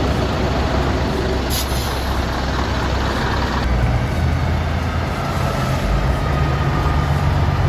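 Logging truck's diesel engine running steadily, with a short hiss about one and a half seconds in.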